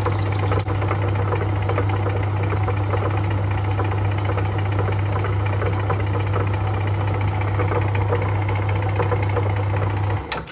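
Metal lathe running with its chuck spinning while a cutting tool machines down the end of a steel screw: a steady low motor hum under a rough, busy mechanical rattle. The lathe is switched off near the end and the sound dies away quickly.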